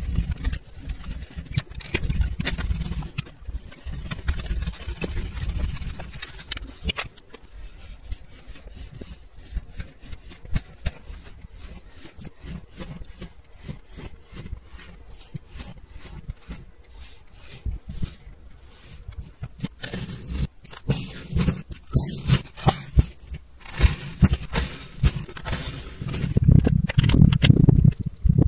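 Kinetic sand being rolled, pressed and cut with tools, crunching and crumbling in many quick crackles, with heavier low thumps near the end.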